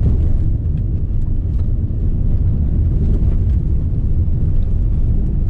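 Cabin noise of a Citroën C4 Cactus with its 1.6 flex engine and six-speed automatic driving at about 55 km/h on a dirt road: a steady low rumble of tyres and engine, with a few faint ticks.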